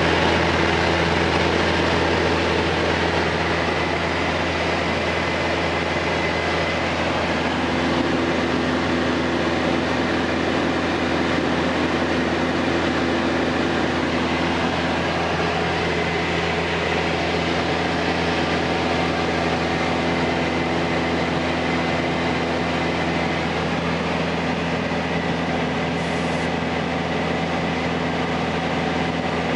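Mooney single-engine light aircraft's piston engine and propeller running steadily in cruise, heard from inside the cabin.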